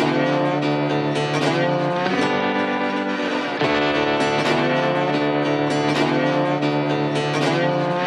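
Background music led by plucked guitar, a steady instrumental.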